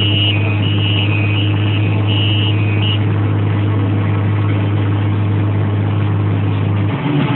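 Fendt 514C Turbo tractor engine running with a steady low drone. For the first three seconds a two-tone electronic beep alternates over it, then stops; the drone drops away near the end.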